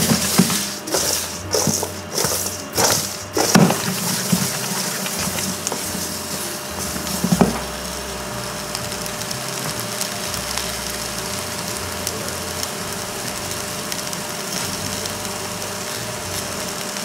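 Green chiles and tomatillos being tossed by hand in a stainless steel bowl coated with hot rendered pork fat: a handful of knocks and rustles in the first few seconds, then a steady sizzling hiss.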